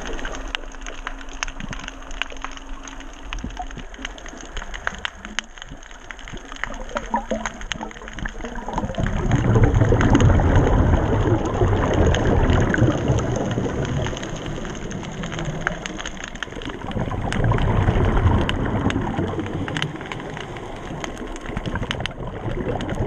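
Underwater ambience heard through a submerged camera: a constant crackle of many small clicks, with a low rumble that swells up about nine seconds in and again near the end.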